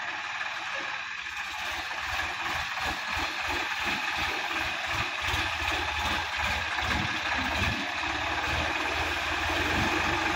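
Sonalika DI-50 RX tractor's diesel engine running under load as it drives through flooded, muddy paddy and climbs onto the bank, with water churning around the tyres. The low end throbs unevenly in the middle of the stretch, and the sound grows a little louder near the end.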